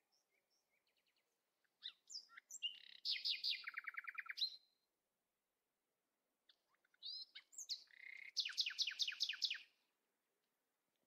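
A songbird singing two similar phrases, each a few varied notes running into a fast trill of repeated notes, with a pause of about two seconds between them.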